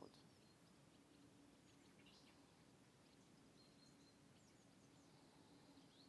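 Near silence: faint outdoor ambience with a few faint, short, high bird chirps.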